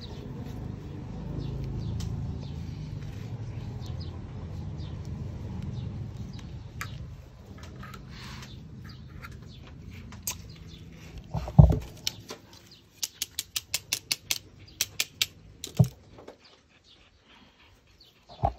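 Close handling noise: a low rubbing and rustling for about ten seconds, then a knock, a quick run of a dozen or so sharp clicks, and another knock.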